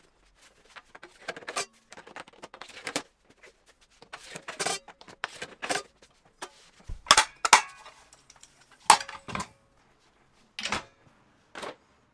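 Metal clanks and knocks from gear being hung on and set into a steel welding cart, a series of irregular sharp impacts with the loudest in the second half, a few ringing briefly.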